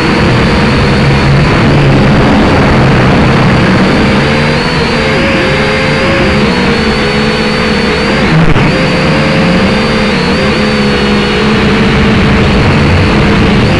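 Drone's electric motors and propellers whining, loud and close as picked up by its own onboard camera; the pitch dips and recovers several times in the middle as the flight changes.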